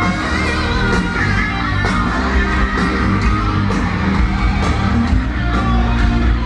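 Live hard rock band playing: electric guitar, drums and a singer.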